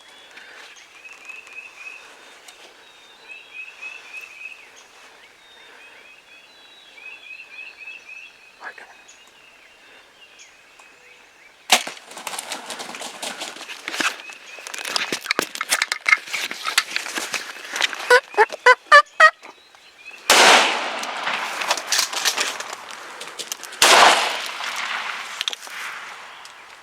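Wild turkeys calling: faint short yelps repeated in small groups, then from about twelve seconds in a loud stretch of gobbling and commotion with a rapid rattling series, followed by two loud sudden bursts near the end.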